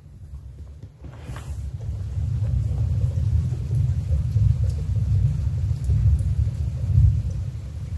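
Thunder: a brief sharp crack about a second and a half in, then a long low rolling rumble that builds and peaks near the end, with light rain pattering.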